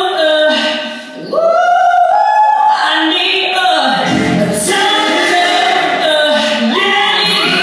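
Singing voice performing a melody with sustained, bending notes over musical accompaniment, dipping briefly about a second in before a long held note.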